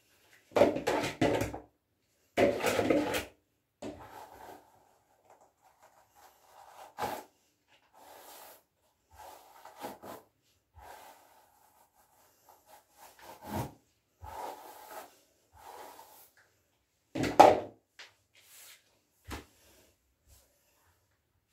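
Irregular rubbing and swishing strokes of paint-wet hair and rubber-gloved hands dragged over paper on the floor, loudest twice in the first few seconds and once more near the end.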